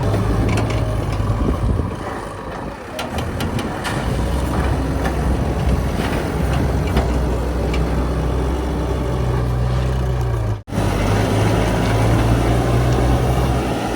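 Heavy diesel engines of backhoe loaders and trucks running, a steady low hum that eases off and picks up again under load, with scattered clicks in the first half. The sound cuts out abruptly for an instant about ten and a half seconds in.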